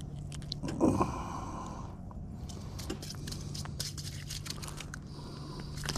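Scraping and rustling handling noises with scattered clicks, loudest about a second in, as a large bluegill struggles in hand, over a steady low hum.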